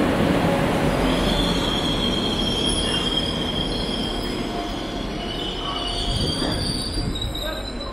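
Northern Class 195 two-car diesel multiple unit braking to a stop, its brakes squealing in several high, wavering tones over the train's rumble, which slowly eases as it slows; very squeaky brakes.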